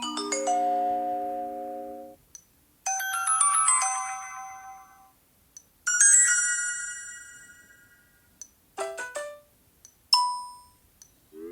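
Sony Xperia built-in notification tones previewed one after another. There are five different short chimes and jingles, each a second or two long, with faint ticks in the gaps, and another starts at the very end.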